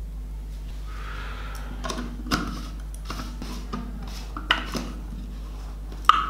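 Plastic clicks and knocks as the blade base of a mixer grinder is screwed onto its plastic jar, several separate clicks with a sharp one near the end the loudest.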